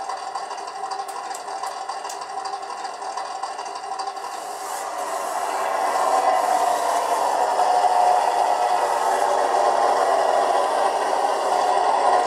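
Simulated truck engine from the RC model's sound module, played through its small built-in speaker. It runs steadily and gets louder about five seconds in as the 1:16 Bruder Dodge RAM starts driving.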